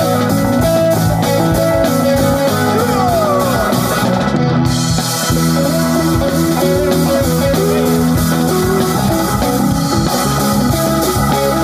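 Rock band playing: guitar, bass and drums with a steady beat, and a falling sliding note a few seconds in.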